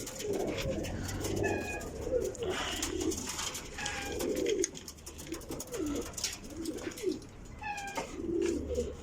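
Domestic pigeons cooing in a loft: a run of low, rolling coos one after another, with a few short higher chirps among them.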